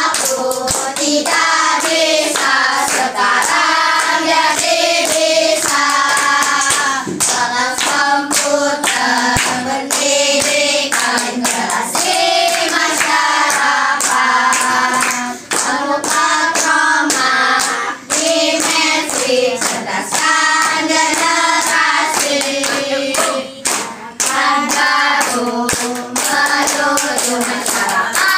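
A group of children singing a song together, clapping their hands along in rhythm.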